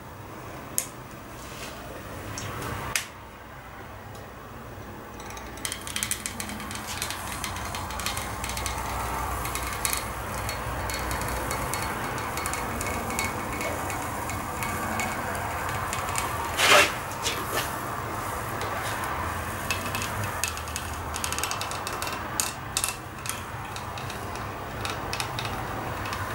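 Handling noise: foam pieces and a hot-wire foam cutter being moved and rubbed, with scattered clicks and taps and one sharper knock a little after halfway, over a steady faint hiss.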